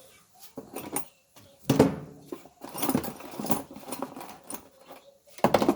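Irregular clanks and rattles of metal parts and tools being handled, in short bursts with a busier run in the middle and a sharp clatter near the end.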